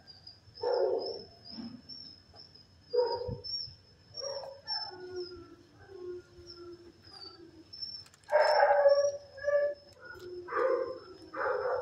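Shelter dogs barking and howling in scattered calls, with a drawn-out howl in the middle and the loudest burst of barking about eight seconds in.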